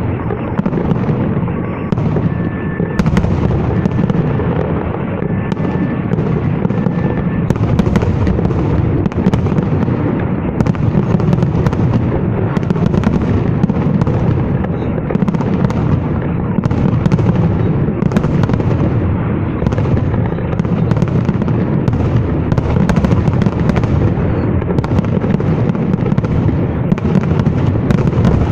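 Fireworks salute: a continuous barrage of shells bursting overhead, booms following one another about every half second and blending into a steady low rumble.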